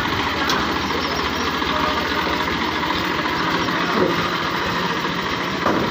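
Massey Ferguson tractor's diesel engine running steadily at low speed.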